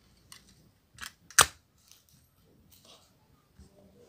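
Handling noise of small plastic parts: a few light taps and one sharp click about a second and a half in.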